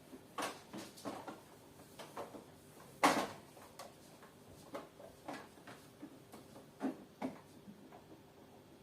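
Light clicks and knocks of hard parts being handled and fitted on a coffee machine, irregular, with one louder knock about three seconds in.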